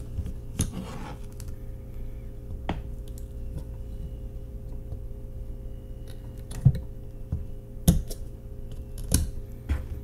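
Pliers working the axle tabs on a diecast toy car's base: a handful of scattered sharp clicks and snaps, the loudest two in the second half.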